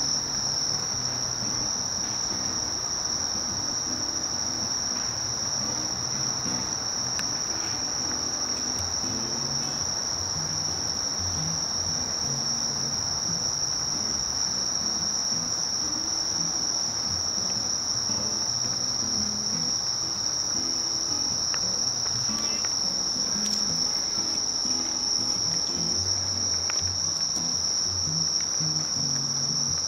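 Singing insects trilling: a steady, high-pitched trill without a break.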